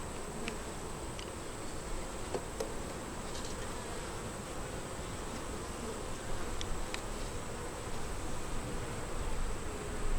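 Honey bees buzzing steadily around an opened hive during an inspection, with a few faint, short clicks.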